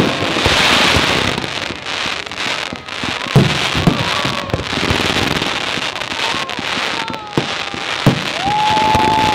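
Aerial fireworks display: dense crackling of bursting stars with deep booms of shell bursts, the loudest about three and a half seconds in.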